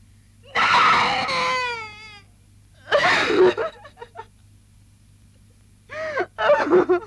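A person's voice in three bursts: the first is drawn out and falls in pitch, and the later two are shorter and broken up.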